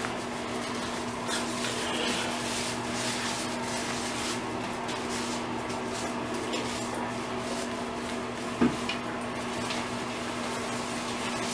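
Hands scrubbing a wet Great Dane puppy's coat in a bathtub: soft wet rubbing and light splashing over a steady background hum, with one brief louder bump about three-quarters of the way through.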